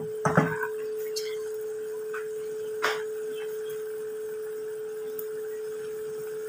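A steady hum at one pitch, with a few sharp pops about half a second in and once more near three seconds, over the faint bubbling of squid adobo sauce simmering in a pan.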